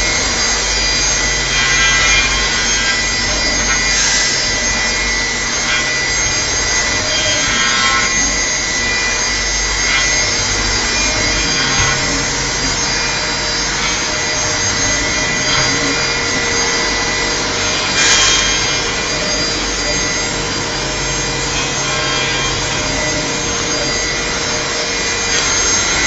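Hermle five-axis CNC machining center milling a metal part: a steady spindle whine with a few held tones over the scratchy hiss of the cutter, with a brief louder rush about 18 seconds in.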